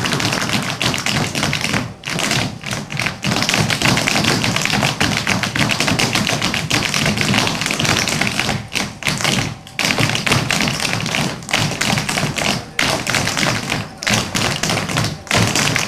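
Many heeled dance shoes tapping and stamping on a wooden stage floor in quick, dense steps, broken by a few brief pauses.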